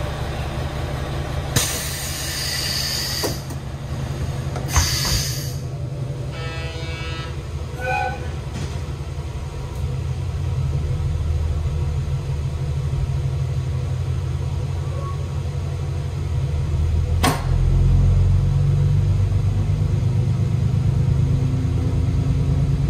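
JR Hokkaido KiHa 281 series diesel railcar engines idling with a steady low hum, broken in the first few seconds by two loud air hisses and then a short buzzer tone. About seventeen seconds in there is a sharp thump, after which the engine note grows louder as power is applied to pull away.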